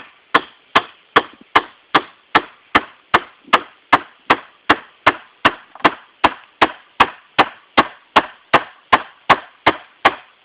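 A Glock pistol, emptied and without its magazine, used as a hammer to drive a 3.5-inch nail into a wooden 2x4. It strikes in a steady rhythm of about two and a half sharp blows a second.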